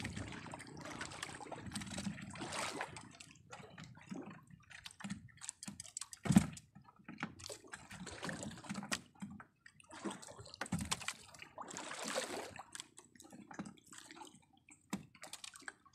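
Water sloshing and lapping around the hull of a small outrigger boat while a wet handline is hauled in hand over hand, with irregular splashes and drips and one sharper knock about six seconds in.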